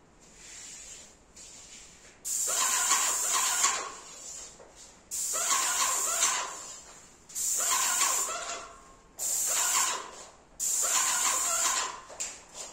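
Airless paint sprayer gun spraying paint in four hissing bursts of about a second and a half each. Each burst starts abruptly, the first about two seconds in, with quieter gaps between.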